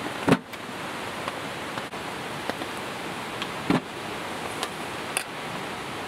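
A steady hiss with three sharp knocks: the loudest comes about a third of a second in, then one near four seconds and one a little after five seconds.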